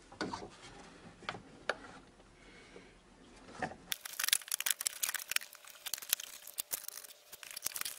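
Rigid plastic air intake housing being handled and fitted onto the engine: a few faint clicks, then from about four seconds in a dense run of plastic clicks, knocks and scraping rustle.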